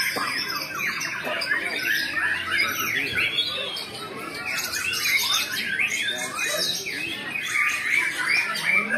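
Several caged white-rumped shamas (murai batu) singing at once in competition: a dense, unbroken tangle of overlapping fast whistles, rising and falling notes and harsh chattering calls.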